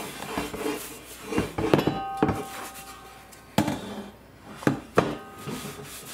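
Heavy cast iron wok knocking about six times as it is handled and turned over, one knock about two seconds in ringing briefly like metal, with a towel rubbing over the pan between the knocks.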